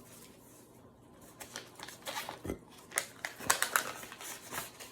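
A Pokémon card and its plastic packaging being handled and opened: a series of short clicks and crinkling rustles, starting about a second and a half in and loudest near the middle-to-end.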